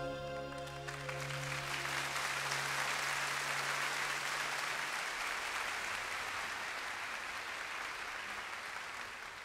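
Audience applauding at the end of a live song, over the band's last held chord, which dies away in the first couple of seconds. The applause then slowly fades.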